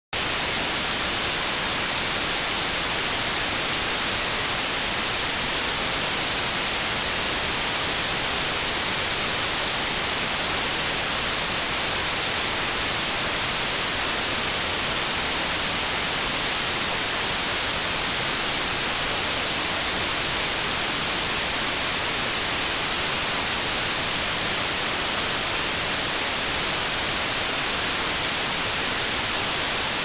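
Steady, digitally generated white noise: an unchanging hiss like the static of an untuned old TV, made with GoldWave's Expression Evaluator.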